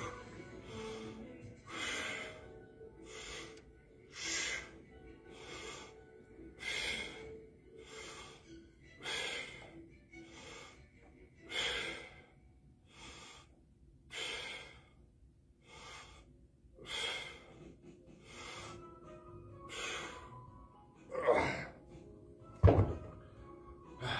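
A man breathing hard and rhythmically, roughly one forceful breath a second in time with seated overhead dumbbell presses. Near the end a louder breath and then a sharp thud as the dumbbells are set down, over faint background music.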